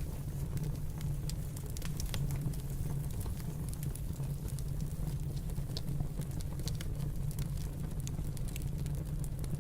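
Fireplace crackling: irregular sharp snaps and pops over a steady low rumble.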